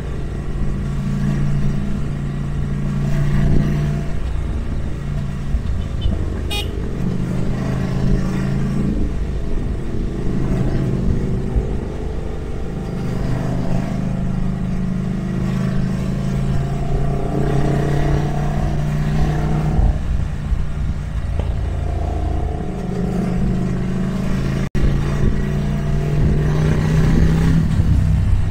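Ducati Monster 797+ air-cooled L-twin engine running on the road, its pitch rising and falling in steps as the rider works the throttle and shifts gears, over a heavy low rumble of wind and road noise.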